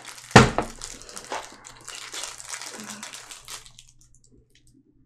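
A sharp knock about a third of a second in, then about three seconds of plastic crinkling and rustling as snack packaging and a plastic water bottle are handled.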